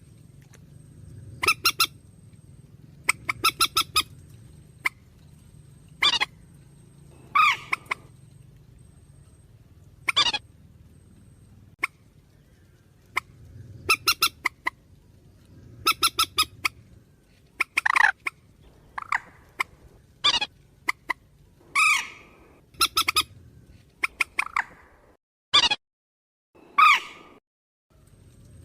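Purple swamphen ('trích') calls from a recording: harsh shrieks and quick stuttering runs of notes, repeated every second or two over a faint low hum.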